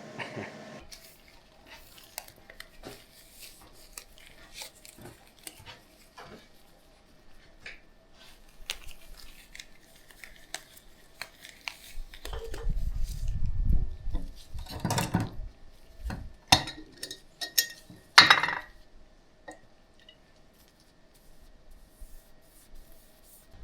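Scattered light clinks, taps and rubbing as stone window sills are coated with sealer, with a low rumble a little past halfway and several sharper knocks soon after.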